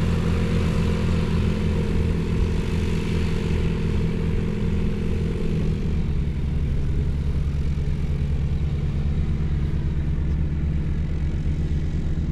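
Light aircraft's piston engine and propeller running steadily. About halfway through, its note changes: the higher tones fade and it settles lower.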